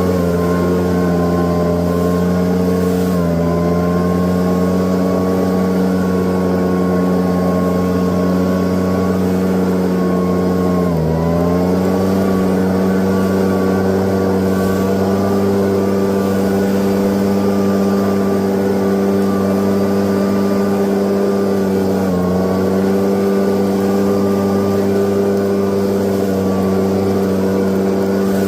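Leaf blower engine running steadily at high throttle, its pitch dipping briefly three times: about 3 seconds in, around 11 seconds and near 22 seconds.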